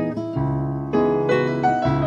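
Yamaha CP digital stage piano and classical guitar playing an instrumental choro together, with the piano to the fore.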